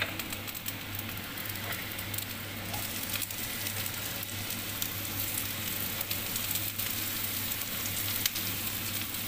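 Minced garlic and sliced onion sizzling in hot oil in a nonstick frying pan: a steady frying hiss with many small crackles.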